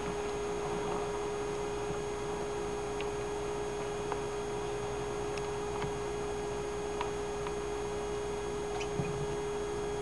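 A steady hum at one fixed pitch over a soft hiss, with a few faint, short ticks scattered through it.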